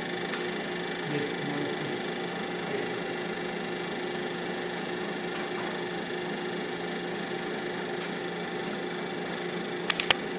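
Grizzly wood lathe running steadily with a pen blank on its mandrel. About ten seconds in come three quick, sharp clicks whose cause is unknown.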